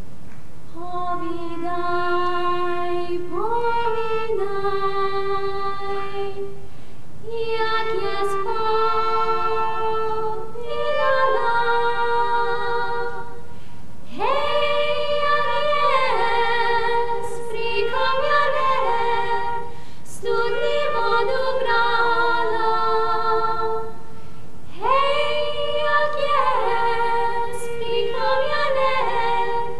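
Three women's voices singing a cappella in close harmony: a folk song in four long phrases, with brief breaths between them.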